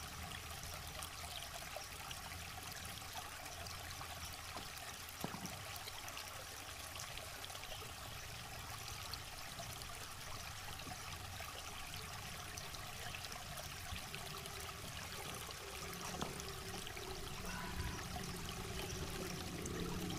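River water flowing steadily, an even rush with no words over it. A single short knock sounds a little after five seconds in.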